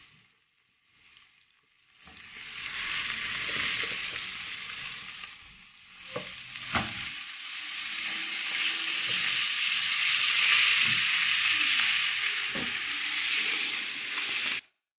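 Marinated chicken wings sizzling in hot oil in a nonstick frying pan as pieces are laid in, with a few short knocks among the hiss. The sizzling starts about two seconds in, grows louder, and cuts off suddenly near the end.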